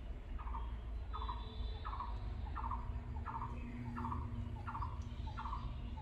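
A bird calling over and over: short falling calls with a fast rattling texture, about one and a half a second, over a low steady rumble.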